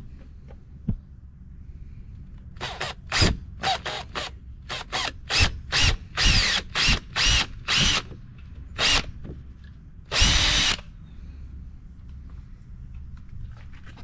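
Cordless drill running in short trigger pulses, about a dozen in quick succession, then one longer run about ten seconds in, boring a pilot hole into the side of a jet ski's hull.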